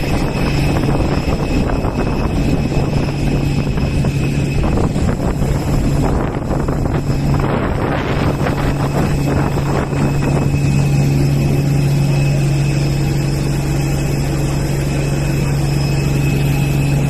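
Steady mechanical drone of a parked Airbus A320neo's running systems, a strong low hum with a few thin high whining tones over it, and some rougher rustling noise for a few seconds near the middle.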